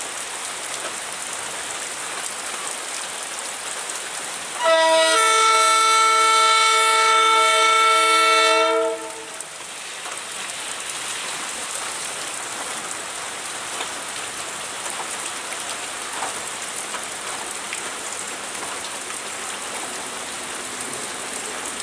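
Heavy rain hissing steadily. About five seconds in, the air horn of a DETC diesel-electric tower car gives one long, steady blast of about four seconds, then the rain goes on alone.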